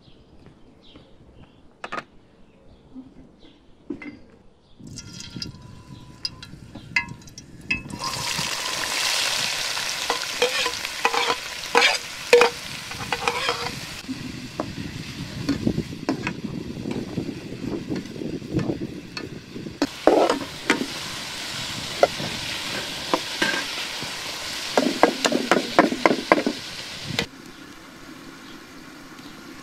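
Sliced carrots and diced peppers sizzling in hot oil in a large steel pan, with a metal utensil clicking and scraping against the pan as they are stirred. After a quiet start with a few knocks, the loud sizzling begins about a quarter of the way in and cuts off abruptly near the end.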